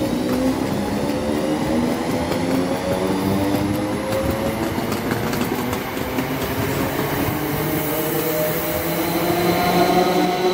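Greater Anglia Class 321 electric multiple unit pulling away past close by: its motor whine climbs steadily in pitch as it accelerates, over steady wheel-on-rail rumble.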